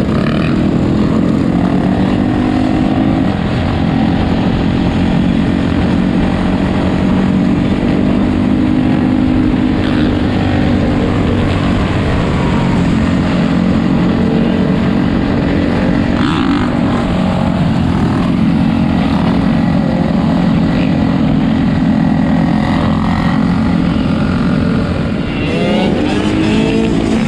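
Four-wheeler (ATV) and dirt-bike engines running together in a loud, continuous drone, the engine note holding steady for long stretches and shifting pitch a few times as the throttles change.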